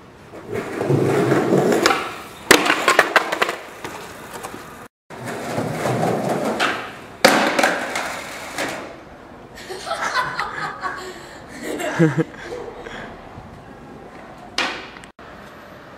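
Skateboard wheels rolling on street asphalt, then the board hitting the ground with sharp clattering slams. This happens twice.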